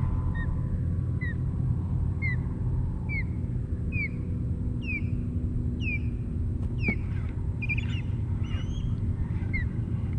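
A bird calling a series of short, downward-slurred whistled notes, about one a second, growing louder, with a few different chirps near the end. A steady low rumble runs underneath.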